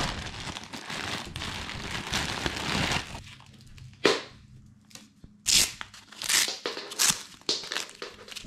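Clear plastic bag crinkling as an SUP leash is worked out of it. A few seconds later come a handful of short tearing rasps as the leash's Velcro ankle cuff is pulled open.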